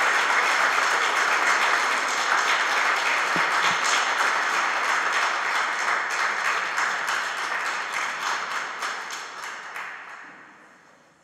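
Audience applauding steadily, the clapping dying away over the last few seconds.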